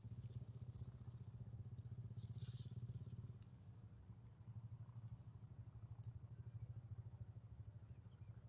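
Faint, steady low hum of an engine running, with a rapid even pulse.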